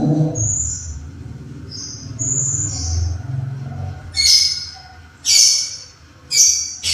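Lovebirds calling: a few short high chirps, then from about four seconds in three loud harsh shrieks roughly a second apart.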